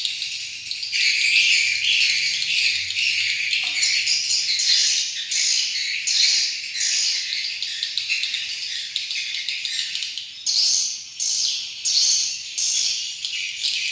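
Edible-nest swiftlets twittering in a dense, continuous chatter of high chirps.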